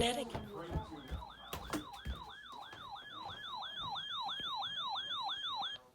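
An electronic siren in a fast yelp, its pitch sweeping down about three times a second and slowly growing louder. A few knocks sound in the first two seconds.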